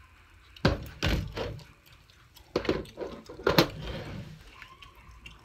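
Close handling noise: a series of about five knocks and clacks with a low rumble, spread unevenly, as hard objects are handled right by the microphone.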